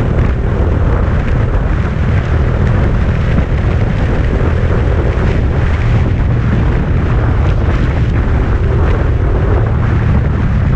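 2018 Honda Grom's 125 cc single-cylinder engine running steadily at riding speed through a Yoshimura RS-2 aftermarket exhaust, mixed with heavy wind buffeting on the microphone.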